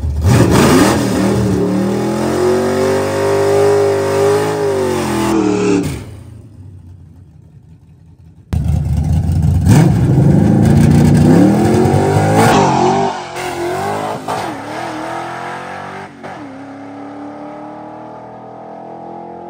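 V8 car engine revving hard under acceleration, its pitch climbing and shifting. It dies away about six seconds in, then cuts back in loud about two seconds later and fades to a quieter, slowly rising pull near the end.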